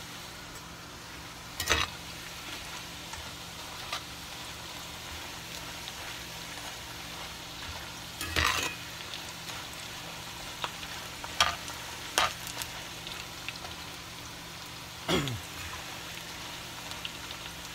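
Green banana slices frying in oil in a cast-iron skillet, a steady sizzle. A metal skimmer turning the slices scrapes and knocks against the pan five times.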